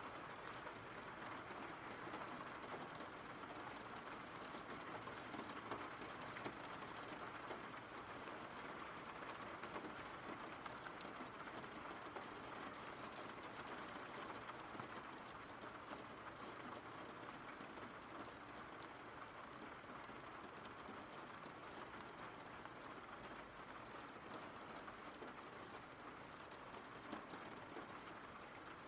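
Steady, soft rainfall from a rain-sounds background track, a fine even patter, growing slightly quieter over the second half.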